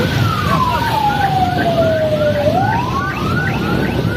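Police siren in a slow wail: its pitch falls for about two and a half seconds, then climbs back up, with short rising chirps repeating several times a second alongside it. Steady street traffic noise runs underneath.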